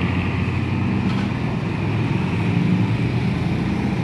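Diesel engine of an Akas intercity bus running as it pulls away, its low engine note fading about two seconds in, over street traffic noise.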